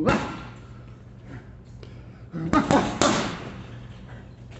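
Boxing-gloved punches landing on a hanging heavy bag: one thud at the start, then a quick combination of about three hits some two and a half seconds in.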